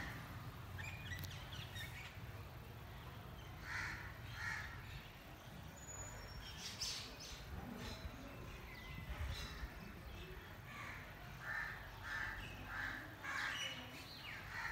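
Crows cawing in short repeated calls, a pair about four seconds in and a run of four near the end, with smaller birds chirping faintly between.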